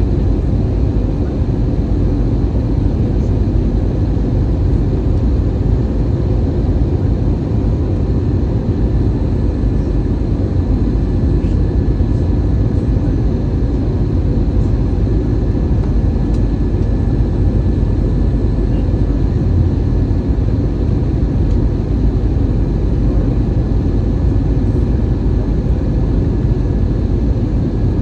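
Steady cabin noise inside an Airbus A320-214 during descent: a deep, even rumble of airflow and the CFM56 turbofan engines, with a faint steady hum on top.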